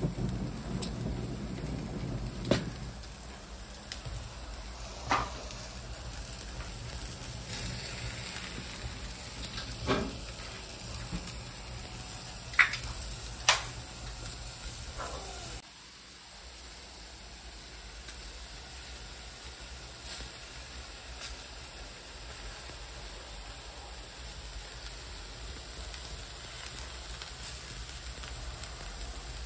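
Beef (picanha and vacío) sizzling on an iron parrilla grill over hot embers: a steady hiss, broken by a few sharp pops and crackles in the first half.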